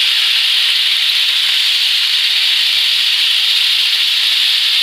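Chicken leg pieces sizzling steadily in hot oil in a non-stick frying pan, shallow-frying to brown after being steamed.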